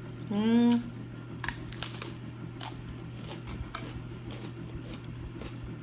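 Close-miked chewing of crunchy fried food: scattered crisp mouth clicks and crunches, opening with a short hummed "mmm" of enjoyment. A steady low hum lies underneath.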